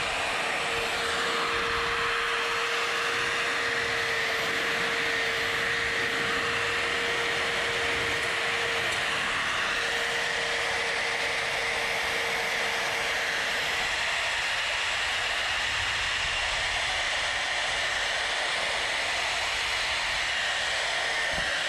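Electric die grinder with a 3/4-inch coarse Saburrtooth flame burr running steadily and grinding wood around a carved owl's eyes: a constant high whine over a rough grinding hiss.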